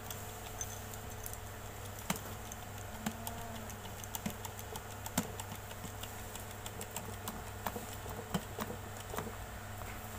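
Irregular small clicks and taps as the parts of a manual hydraulic cable-lug crimping tool and a cable lug are handled and fitted into the crimping jaw, over a steady low hum.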